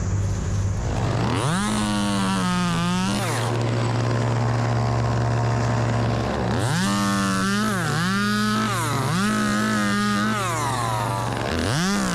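Two-stroke chainsaw revved to full throttle in bursts. One long rev comes about a second in, a run of three or four quick revs follows from about six and a half seconds, and another comes near the end. A steady low engine drone runs underneath.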